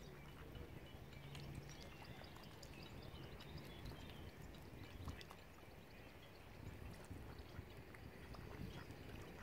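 Faint lake water lapping and dripping, with many small ticks of droplets. A low hum is heard in the first two seconds.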